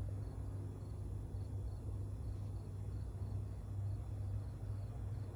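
Steady low hum with faint high chirps repeating two or three times a second; the hand adjustment of the cutter bit in its fixture makes no clear sound of its own.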